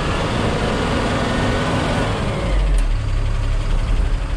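Yard truck's diesel engine running. A broad rushing noise fills the first couple of seconds, then a deeper, stronger engine rumble comes in about two and a half seconds in, as the truck gets ready to pull out.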